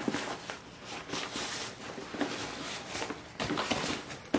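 Fabric rustling and scraping of a Timbuk2 Division Pack being handled as notepads are slid down into its main compartment, with irregular soft knocks and brushes throughout, a little busier near the end.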